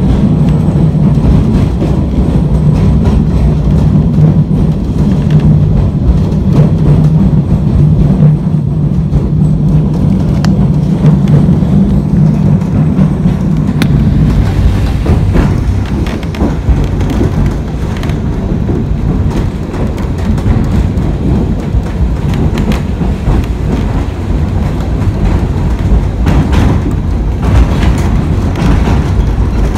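W class tram running along the track. A steady low hum for the first half gives way to rattling and scattered clicks of the wheels over the rails.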